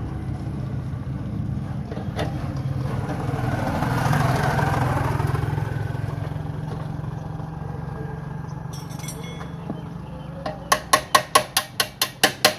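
Motorcycle engine running steadily, with another vehicle passing by about four seconds in. Near the end comes a quick run of about ten sharp knocks.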